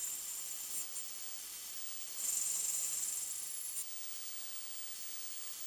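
Mini lathe turning a Morse taper, the cutting tool hissing against the turning steel stock. The hiss swells for about a second and a half near the middle, as the tool takes a pass.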